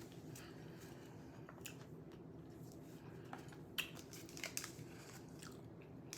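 Soft clicks and smacks of someone eating food by hand, over a low steady hum; the clicks come thicker and sharper in the second half.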